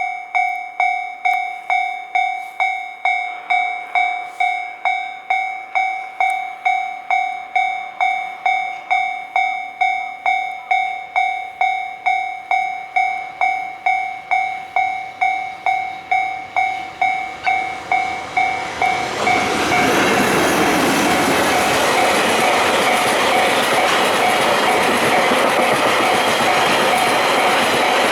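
Level-crossing warning bell ringing in a steady rhythm, about three strokes every two seconds. About two-thirds of the way in, a freight train reaches the crossing and passes, its loud, steady rolling noise from locomotive and wagons rising over the bell, which keeps ringing underneath.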